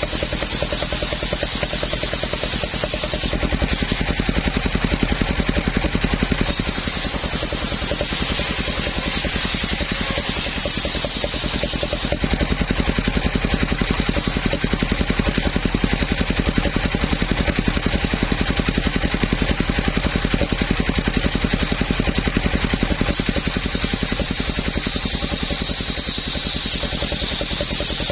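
The engine driving a homemade circular sawmill runs steadily with a fast, even pulse, as the saw cuts a coconut trunk. A high whine runs above the engine and sinks in pitch near the end.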